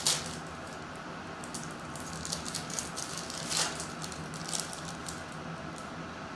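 Foil wrapper of a Topps WWE trading-card pack being torn open and crinkled by hand: a sharp rip right at the start, a run of crackles, and another loud tear about three and a half seconds in. A steady low hum sits underneath.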